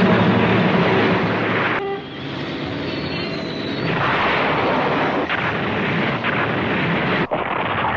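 Anime explosion sound effects: a loud, dense rumbling blast that cuts off sharply about two seconds in, a quieter stretch, then another blast rising about four seconds in.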